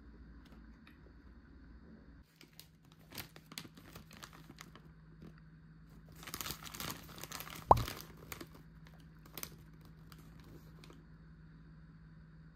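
Food packaging crinkling and tearing as it is handled and opened, in scattered rustles that thicken a little past the middle, with one sharp knock there that is the loudest sound.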